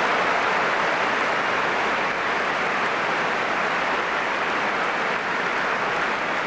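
Tennis crowd applauding: dense, steady clapping from a large audience.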